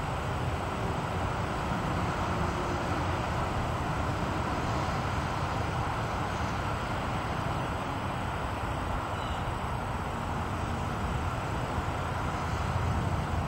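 High wind blowing steadily: an even rushing noise with a heavy low rumble of wind buffeting the microphone, swelling slightly near the end.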